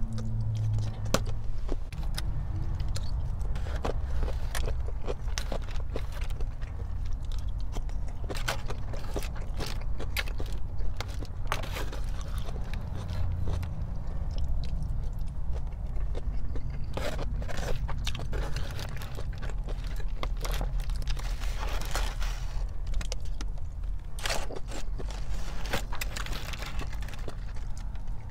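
Close-miked eating: chewing with frequent crisp crunches and clicky bites of Korean fried chicken and beef bulgogi. A steady low hum runs underneath.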